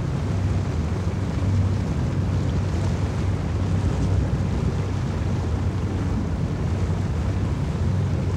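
Motorboat engine running steadily underway, a low even drone, with wind buffeting the microphone.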